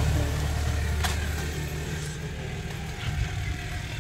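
Nissan NV350 van's diesel engine idling through an open-pipe exhaust: a low, steady rumble that grows fainter. A short click about a second in.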